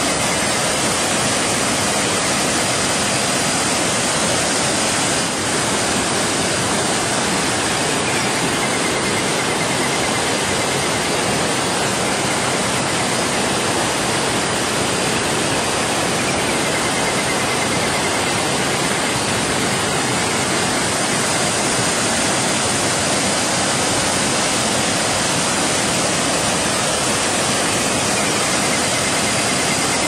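Small waterfall cascading over rock ledges and between boulders into a pool: a loud, steady rush of falling water.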